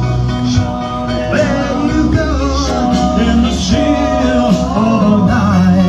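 A song playing: a sung melody over a band with a steady bass.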